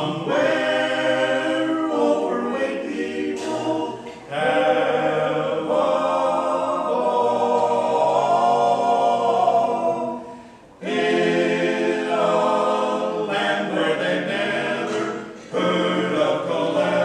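Barbershop quartet of four men singing a cappella in close harmony. The phrases are broken by three short breaths, and a long chord is held for about five seconds in the middle.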